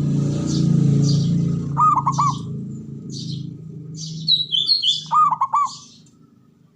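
Zebra dove (perkutut) cooing: two short runs of three or four rolling notes, about two seconds in and again about five seconds in. Higher-pitched bird chirps repeat throughout, over a low hum that fades out over the second half.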